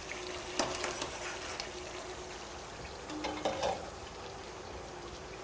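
Metal ladle clinking and scraping against a cooking pot while stirring a stew: a few sharp clinks about half a second in, then a short clatter around three and a half seconds, over a steady low hiss.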